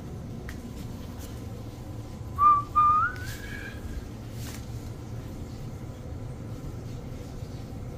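A short whistle about two and a half seconds in: a brief held note, a break, then a second note that slides upward. A low steady hum runs underneath.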